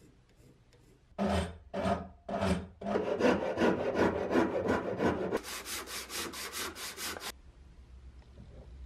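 A hand rasp scraping along a wooden acacia axe handle: three separate strokes, then rapid back-and-forth strokes, which turn quicker and hissier about five seconds in and stop about seven seconds in.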